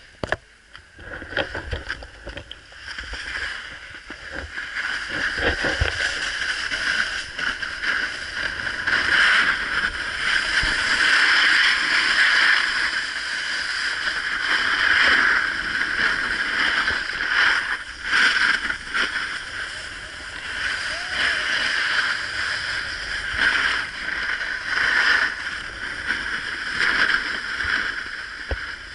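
Snowboard sliding down a groomed snow run: a steady scraping hiss of the board on the snow that starts quiet, builds over the first several seconds and then swells and eases with the turns.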